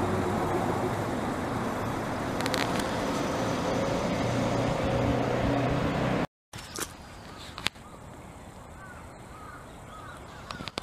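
Street traffic, with a road vehicle's engine running close by as a steady low hum. About six seconds in, the sound cuts off abruptly and gives way to much quieter street ambience with a few sharp clicks and faint chirps.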